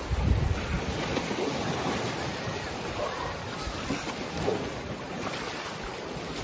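Water splashing and churning as a herd of elephants wades through a shallow river, with wind buffeting the microphone, strongest in the first half second.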